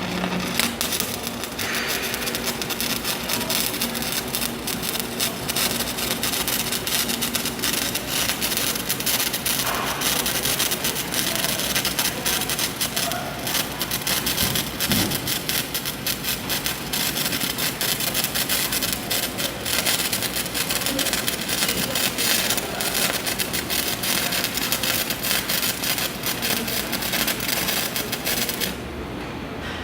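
Electric arc welding a fillet bead on steel plate: a steady crackling arc sizzle that runs unbroken and stops abruptly near the end as the arc is broken.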